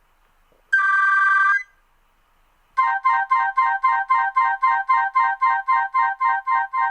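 Nokia 3310 3G ringtones playing from the phone's speaker. About a second in there is a short trilling tone, and after a pause a fast run of repeating electronic notes at about five a second starts up.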